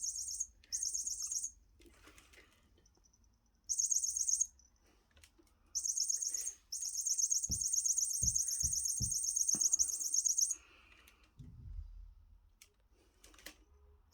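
Electronic bird-chirp sound from a cat toy, repeating in bursts of high, rapid twittering, the longest lasting nearly four seconds. A few soft thumps sound between the bursts.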